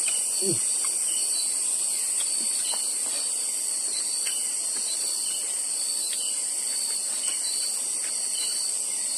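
Steady, high-pitched chorus of crickets and other insects, with a few faint scattered clicks.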